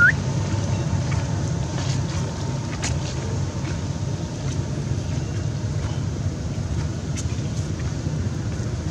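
Steady low outdoor rumble with no clear pitch, with a short rising squeak right at the start and a few faint ticks later.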